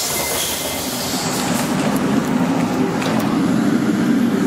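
Rome Metro line B train noise: a steady low rumble with hiss.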